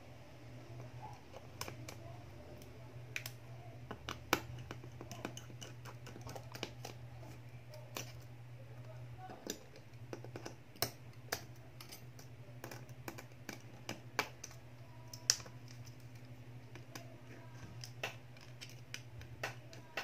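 Small irregular clicks and taps of a precision screwdriver and small metal tools working the screws of a smartphone's mainboard cover, over a steady low hum.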